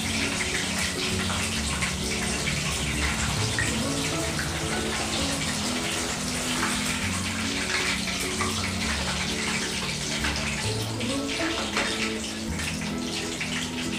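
Chicken skewers deep-frying in hot oil in a kadai: a steady sizzle full of small crackles and pops. Soft background music runs underneath.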